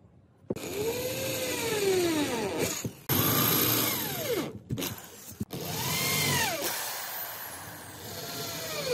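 Power drill boring holes into a chipboard panel. The motor starts about half a second in and runs in about four bursts with short breaks, its whine rising and falling in pitch within each burst.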